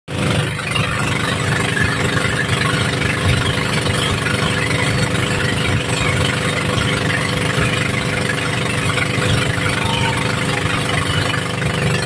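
Inboard engine of a bangka outrigger boat running steadily under way, a continuous low drone with a steady hiss over it.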